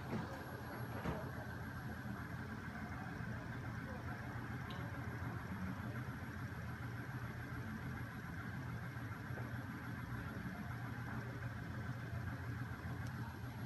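A homemade magnet-crankshaft machine running: its small 12 V electric motor, spinning flywheel and weighted shafts give a steady low mechanical hum and whir. There are a couple of light clicks in the first second or so.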